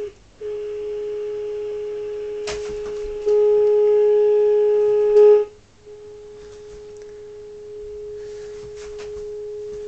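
Steady single-pitch audio tone from the Uniden 2020 transceiver's speaker: the signal generator's carrier being received while the set is aligned. The tone jumps louder with a click about three seconds in, cuts out for a moment past five seconds, then comes back quieter.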